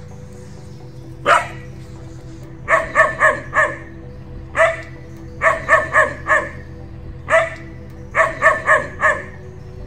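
German Shepherd barking in a repeating pattern: one bark, then a quick run of four, three times over.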